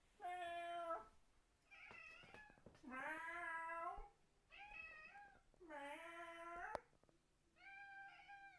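Domestic cat meowing back and forth with a person's imitation meows: about six calls, each under a second long, with short gaps between. The cat's replies are the odd, 'deranged' meow of this cat.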